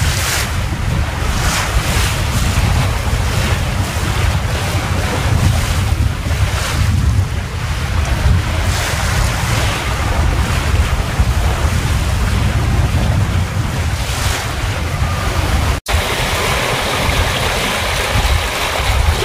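Wind buffeting the microphone over the rush of water along a small sailboat's hull as it runs through rough seas in a strong breeze, with surges of splashing every second or two. Near the end, after a brief cut, a steadier rushing of foaming wake water.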